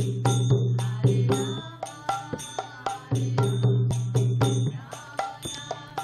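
Mridanga, a two-headed barrel drum, played with both hands in a kirtan rhythm: deep bass strokes that swell and fade, struck between sharp treble slaps several times a second, with a high metallic ringing alongside.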